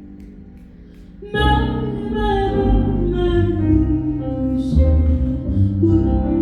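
Live band music: a soft held chord fades, then about a second in the full band comes in loudly with a moving melody.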